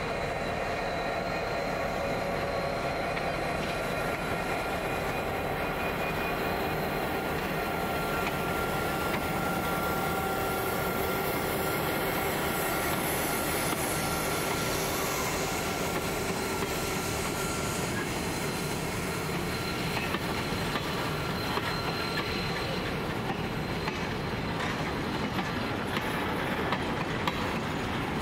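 A diesel freight train pulling out, its G-class and 81-class diesel-electric locomotives running as they move past, then grain hopper wagons rolling by with wheels clattering on the rails. A few faint steady tones sound over the continuous rumble.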